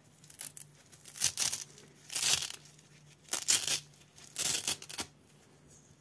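Cloth hood of a soft latex mask rustling as it is handled and folded by hand, in about five short bursts of rubbing and crinkling.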